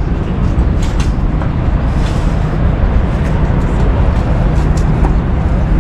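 Steady low rumble of outdoor noise, with a faint steady engine-like hum coming in about three seconds in.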